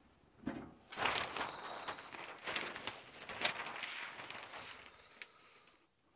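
A large sheet of brown kraft paper being shaken out and spread over a steel workbench, crackling and rustling for about four seconds, with a short knock just before it starts.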